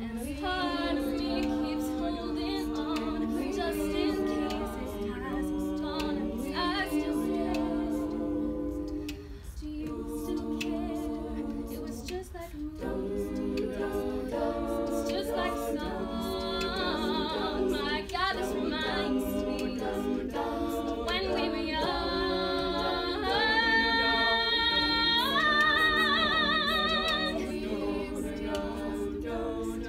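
Women's a cappella group singing: a lead voice over sustained backing harmonies, with no instruments. The lead rises and swells with vibrato about two-thirds of the way through, where the singing is loudest.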